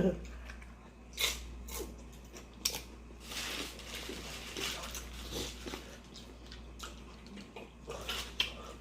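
Close-up mouth sounds of someone eating nacho dip: a series of irregular crunches and chewing, loudest a little after one second in, between three and four seconds in, and again near the end.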